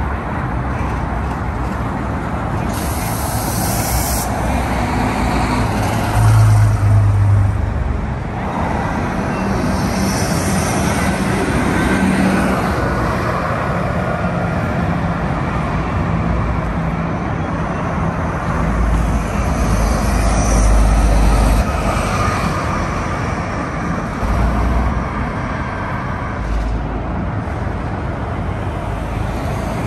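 City buses and other traffic passing on a street: bus engines run and swell louder as vehicles go by, twice, about six and twenty seconds in, over steady road noise. A short hiss about three seconds in.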